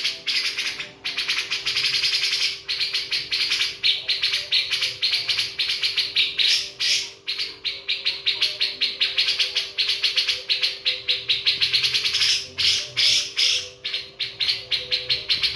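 Birds chirping rapidly and continuously, about five or six chirps a second, over a faint steady hum.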